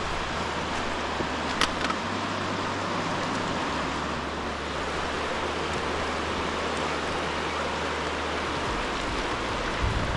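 The Cispus River rushing steadily, a constant even roar of fast water running over its rocky bed.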